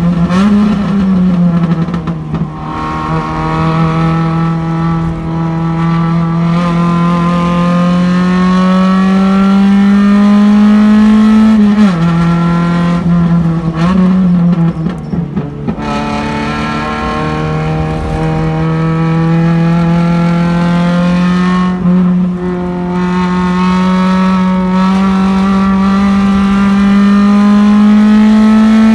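Race car engine heard from inside the car, running hard under load with its note climbing slowly as the car gathers speed. The pitch falls sharply around twelve to fifteen seconds in and again near the end as the driver comes off the throttle.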